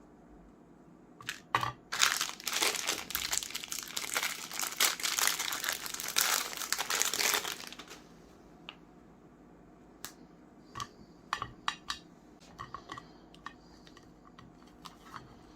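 Dense crinkling and crunching for about six seconds, then a run of scattered light clicks and cracks.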